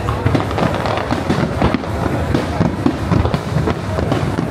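Fireworks going off in rapid succession: a dense, continuous run of bangs and crackling.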